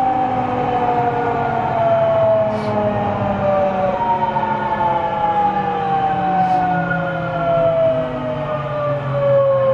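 Traction motors and VVVF inverter of a JR 207 series 1000-subseries (renewed) electric train, heard inside the motor car as a whine over the rumble of running. The whine falls steadily in pitch, jumps back up about four seconds in, and falls again, as the train slows under braking.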